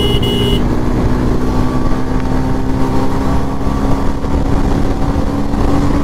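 2024 Bajaj Pulsar 125's single-cylinder engine held at high revs near its top speed of about 100 km/h, a steady drone under heavy wind rush on the microphone. A short high double beep sounds right at the start.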